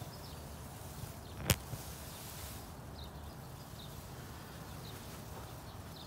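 Quiet outdoor background with faint, short high bird chirps now and then, and one sharp click about a second and a half in.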